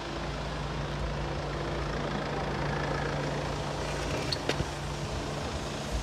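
Steady mechanical hum of running machinery, with a couple of light clicks about four and a half seconds in.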